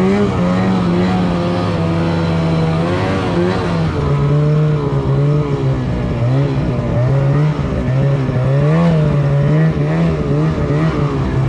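Snowmobile engine running hard through deep powder, its pitch rising and falling over and over as the throttle is worked.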